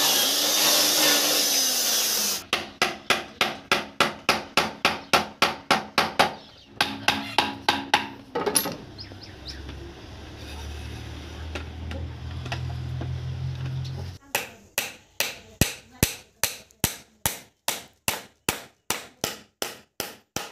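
Electric drill boring into wood, then a run of hammer blows, about four a second. A low steady hum follows, then a second run of hammer strikes on the wooden scooter frame.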